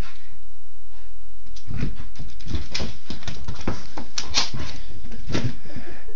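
A Shiba Inu puppy scrambling after a laser dot on a hardwood floor: a quick, irregular run of clicking claws and thumping paws that starts about a second and a half in.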